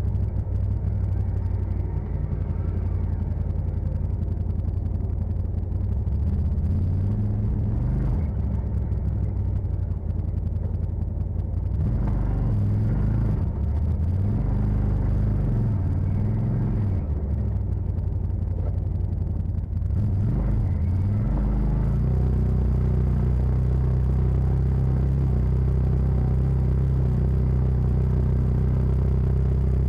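CF Moto side-by-side engine running on an off-road trail. Its pitch rises and falls several times about halfway through as the throttle comes on and off, then it settles to a steady run.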